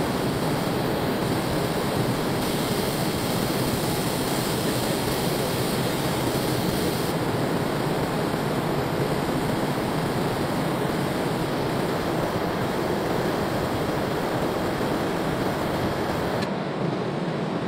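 Steady rushing noise of car-factory machinery and air handling in the robot paint shop, with no distinct events, its character shifting slightly a few times.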